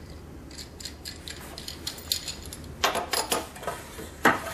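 Clicks and rattles of a circular-saw guide-rail clamp being handled: a few light ticks at first, then a cluster of louder clatters about three seconds in and one sharp click near the end.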